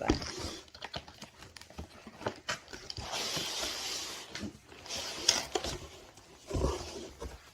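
Packaging being handled as a magnetic embroidery hoop is unpacked: scattered light clicks and knocks, a stretch of rustling about three seconds in, and a soft thump near the end.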